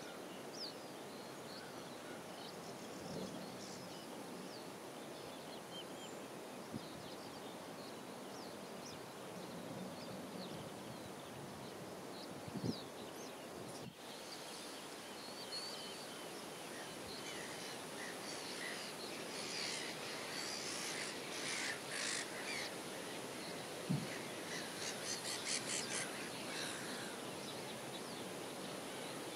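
Wild birds calling over a steady background of outdoor noise: small, scattered chirps at first, then louder and busier calls from about twenty seconds in, with a quick run of repeated notes near the end.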